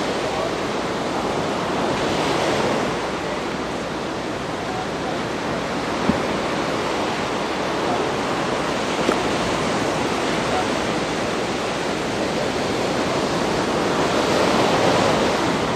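Steady rush of surf breaking on the shore, swelling about two seconds in and again near the end, with a couple of faint clicks.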